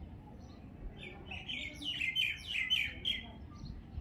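A bird chirping: a quick run of short, falling chirps starting about a second in and stopping a little after three seconds, over faint outdoor background noise.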